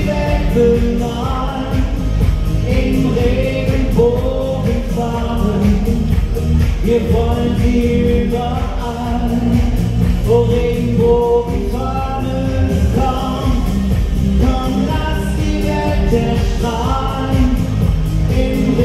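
A song performed on stage: a solo voice singing a melody over loud musical accompaniment.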